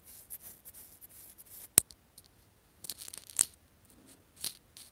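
Faint rustling and small handling knocks, with one sharp click about two seconds in.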